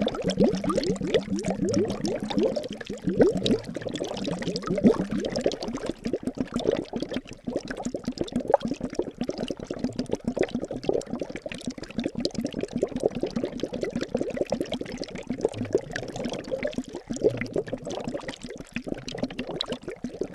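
Liquid bubbling and gurgling steadily, a dense run of small bubbles popping one after another.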